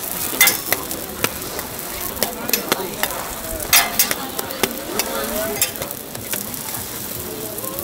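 Hotteok sizzling in oil on a flat steel griddle. Sharp metal clinks come several times as a steel spatula and a hotteok press strike the griddle while the pancakes are pressed flat and turned.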